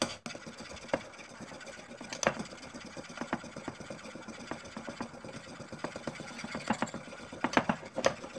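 Metal spoon clicking rapidly and irregularly against a ceramic bowl while instant coffee, sugar and water are hand-beaten into dalgona foam.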